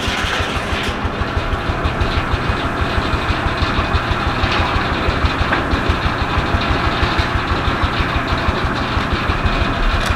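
Rumely OilPull Model E tractor's slow-running two-cylinder kerosene engine working under belt load, with a steady, even exhaust beat.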